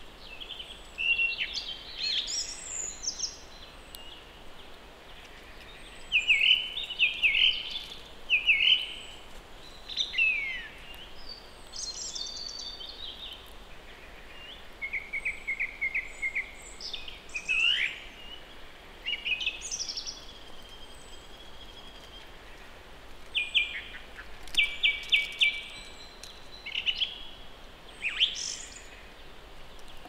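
Several songbirds singing, a varied mix of short whistled phrases and rapid trills coming one after another, over a faint steady hiss.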